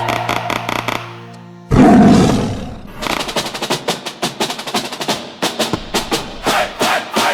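A show soundtrack: the music fades out, and about two seconds in a sudden deep roar breaks in and dies away. From about three seconds in, rapid sharp percussion hits follow, like a drum roll.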